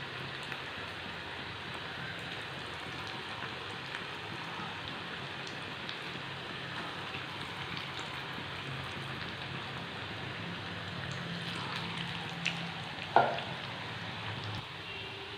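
Bread-and-chicken pakodas deep-frying in hot oil in a kadai: a steady, even sizzle. A brief clink near the end.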